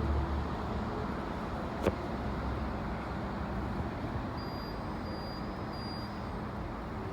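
Steady parking-garage background noise with a low rumble that eases off in the first second. One sharp click comes about two seconds in.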